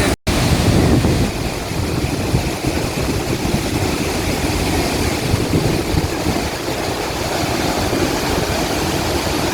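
Steady roar of a waterfall in heavy flow, with gusts of wind buffeting the microphone in the low rumble.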